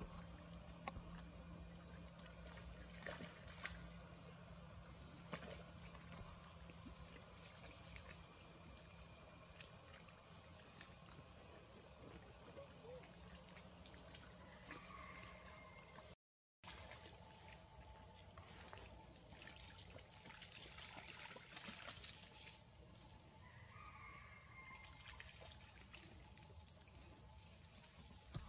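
Faint outdoor ambience dominated by a steady, high-pitched insect drone, with scattered soft clicks and rustles and a couple of brief faint chirps. The sound cuts out completely for about half a second around the middle.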